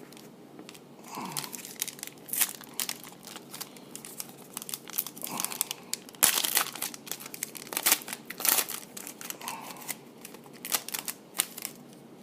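A trading-card pack's plastic wrapper being torn open and crinkled by hand, an irregular run of sharp crackles.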